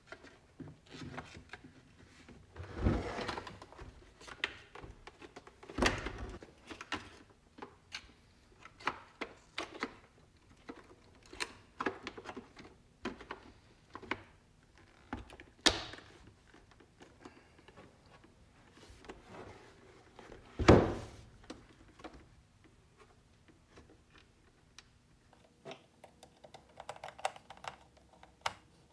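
Plastic clicks, knocks and thunks as a UPS battery backup's plastic case and front battery cover are pushed back into place and the unit is handled on a wooden bench, with several louder knocks among quieter ticks and a screwdriver driving a case screw near the end.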